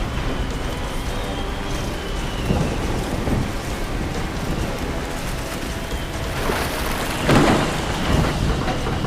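Heavy rain falling steadily, with thunder rumbling; a louder rumble swells up about seven seconds in.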